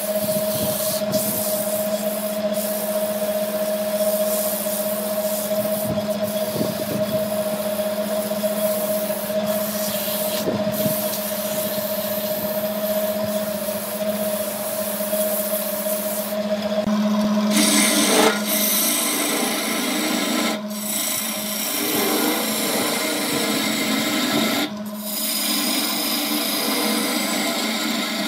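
Wood lathe running with a steady hum while sandpaper is held against a spinning wooden vase, rubbing it smooth. About two-thirds of the way through, the sound changes to a turning gouge cutting into wood on the lathe, a harsher scraping.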